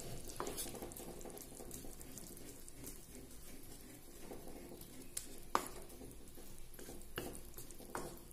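Soya chunks simmering in masala gravy in a pan, with a faint, steady sizzle and bubbling. A wooden spatula stirs them, clicking against the pan a few times.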